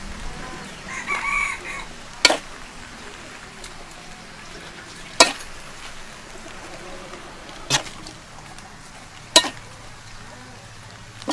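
A metal utensil clinks sharply against a metal serving plate about five times, a few seconds apart, while stir-fried noodles are lifted and served, over a steady low hiss.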